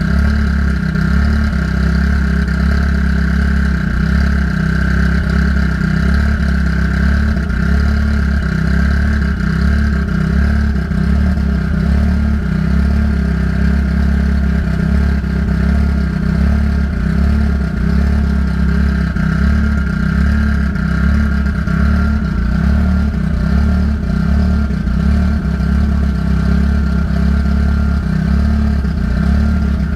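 Car engine idling steadily while its cooling system is burped of trapped air after a radiator replacement.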